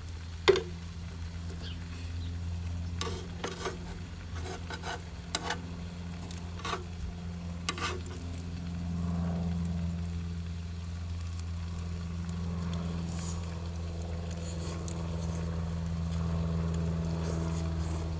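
Food sizzling on a grill with a few sharp clicks of utensils in the first half, over a steady low drone. Near the end, the steady tones of an airplane overhead grow louder.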